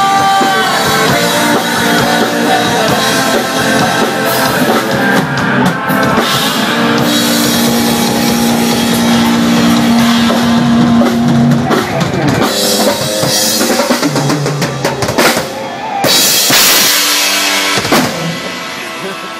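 Live rock band playing with the drum kit to the fore, bass drum and guitar under it. Loud cymbal crashes come near the end as the song winds down.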